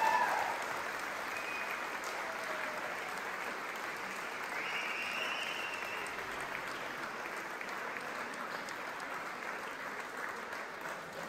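Audience applauding, steady clapping that eases off slightly near the end.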